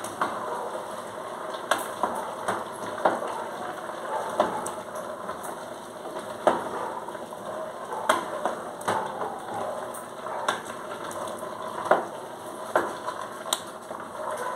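Wooden spoon stirring food in a metal pot over a steady sizzle of frying, with sharp irregular knocks of the spoon against the pot about once a second.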